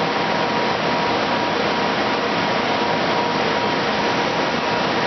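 Cincinnati No. 1 chucking angle grinder running: a steady machine rush with a thin, steady whine over it.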